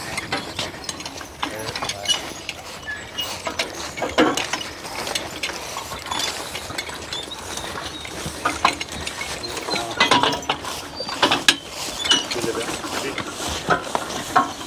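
Metal clanking and rattling of a Percheron team's harness and the horse-drawn spring tooth harrow rig as the team is driven past, in many irregular clicks and clanks.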